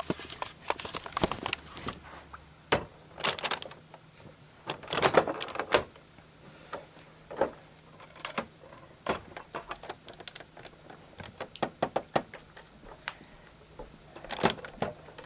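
Lego bricks and plates being pulled off a model and set down: irregular sharp plastic clicks and clatters, some in quick clusters.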